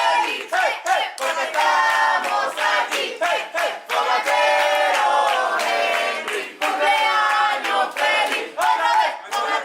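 A group of voices chanting and singing together loudly, with sharp hand claps cutting through.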